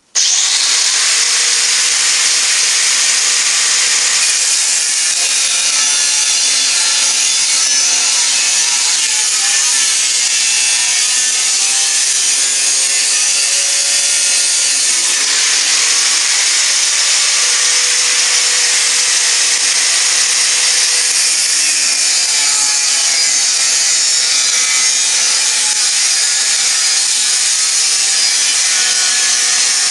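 Angle grinder with a cutting disc cutting through 10 mm thick stainless steel plate: a loud, steady grinding that starts suddenly, with a thin high whine running through it.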